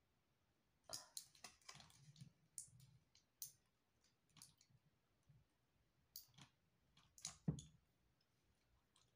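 Faint crinkling and clicking of a plastic-and-foil blister pack of tablets as it is handled and pressed between the fingers. The clicks come irregularly, the sharpest one about seven and a half seconds in.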